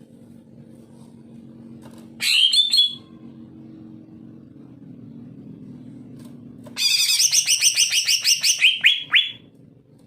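Male cucak ijo (green leafbird) singing: a short burst of high notes about two seconds in, then a long, rapid string of notes from about seven seconds in that ends in a few quick sweeping notes. A low steady hum lies underneath until the second phrase begins.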